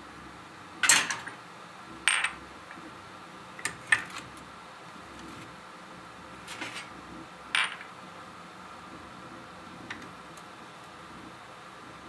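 Small glass tea cups and saucers clinking against a metal tray as they are handled and set down. About six sharp clinks are spread out, the loudest about a second in, and a couple of them ring briefly.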